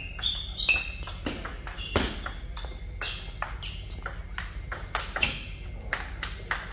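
Table tennis rally: the ball is struck back and forth by paddles and bounces on the table, making a quick, irregular series of sharp clicks and pings.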